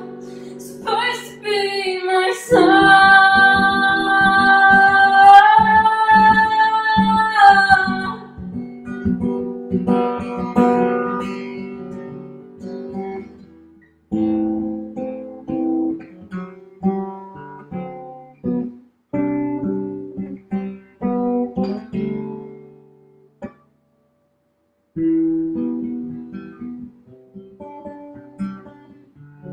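A woman singing a long held line over acoustic guitar, then the acoustic guitar playing on alone in picked notes and chords. The guitar stops briefly about two-thirds of the way through, then starts again.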